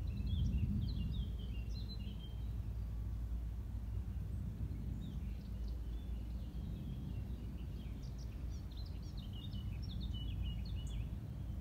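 A small bird singing in quick, high chirping phrases, in two spells: at the start and again from about five seconds in, over a steady low rumble of outdoor background noise.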